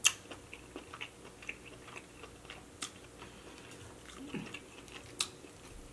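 Close-miked chewing of king crab meat: soft wet mouth sounds with scattered sharp clicks and lip smacks, and a short hummed "mm" a little after four seconds in.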